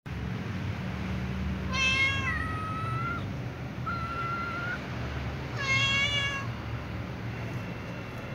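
Calico cat meowing three times, drawn-out meows of about a second each.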